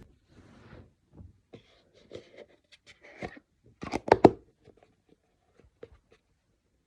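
A person's mouth and throat sounds while drinking water: scattered soft clicks and swallows, with a short, louder run of three or four quick throat sounds about four seconds in.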